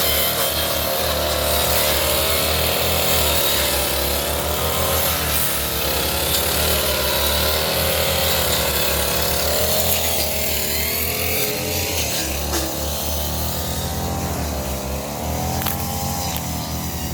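Petrol brush cutter engine running at high speed, its pitch dipping and rising again and again as it cuts through undergrowth.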